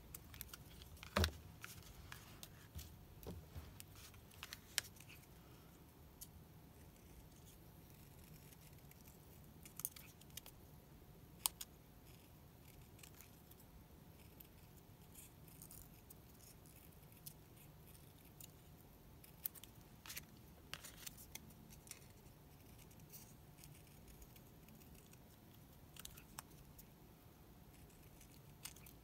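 Small craft scissors snipping paper in scattered single cuts, separated by quiet stretches, as a small word bubble is cut out of card stock.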